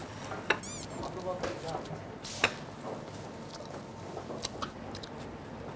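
Tableware clinking: a few sharp clicks of chopsticks and plates, the loudest about two and a half seconds in, with chewing between them.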